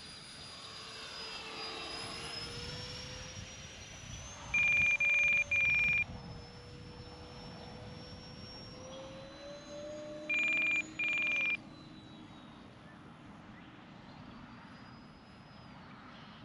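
Twin 64 mm electric ducted fans of an E-flite A-10 RC jet whining in flight, the pitch sliding up and down with throttle as the jet flies past. Three short loud electronic beeps come about four and a half seconds in, and two more about ten seconds in.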